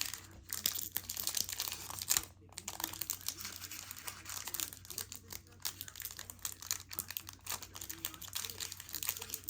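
Foil Pokémon booster pack wrapper crinkling in irregular crackles as it is handled and opened, with a brief pause a little over two seconds in.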